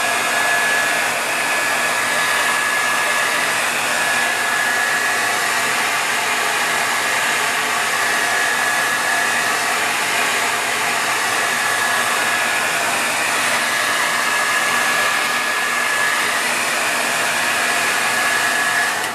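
Handheld hair dryer running steadily on a constant setting: an even rush of air with a faint high whine, heating the glued glass of an iPad 2 to soften the adhesive so the cracked digitizer can be pried off.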